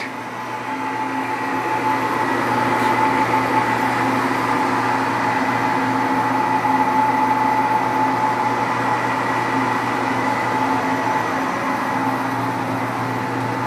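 Acer Dynamic 1760G geared-head engine lathe running with its spindle turning: a steady hum of the motor and headstock gears with a steady high whine. It gets a little louder over the first couple of seconds, then holds even.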